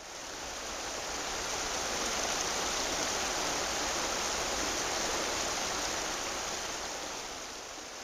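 Mountain river water rushing over rocks, a steady rush that fades in at the start and eases off slightly near the end.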